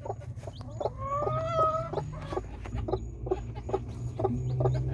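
Broody hen with newly hatched chicks clucking in a fast run of short clucks, with one drawn-out rising call about a second in, as she is disturbed on the nest.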